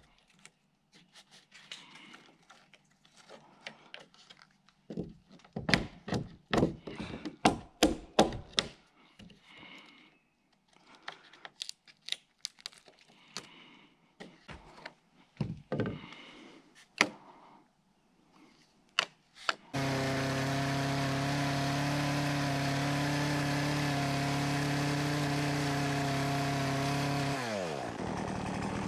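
A hatchet chopping out a joist notch in a cedar log: irregular sharp knocks in clusters. About two-thirds of the way through, a steady motor or engine sound starts suddenly, runs evenly, then winds down with falling pitch near the end.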